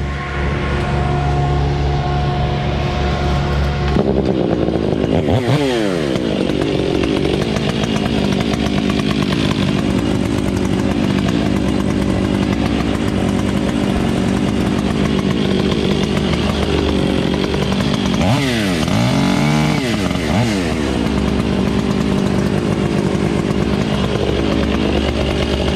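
Chainsaw engine running close by, revving up and dropping back a few times. A steady engine hum is heard for the first few seconds before it.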